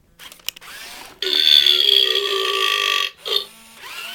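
A toy robot playing a recorded burp: a loud, pitched burp lasting nearly two seconds, starting about a second in, with a quieter lead-in before it and a short burp-like burst just after.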